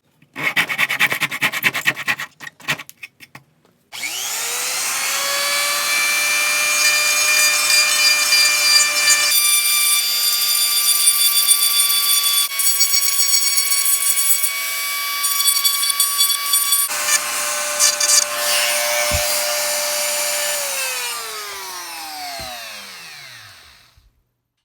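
Scratchy rubbing on wood, then a high-speed power tool motor spins up about four seconds in and runs while cutting wood, its sound changing several times under load. Near the end it is switched off and winds down in falling pitch to a stop.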